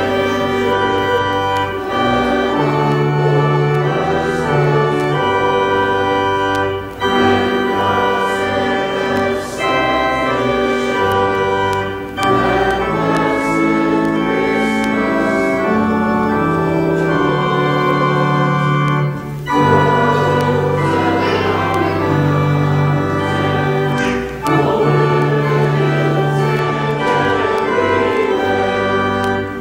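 Church organ playing a slow piece in sustained chords with a held bass line, pausing briefly between phrases.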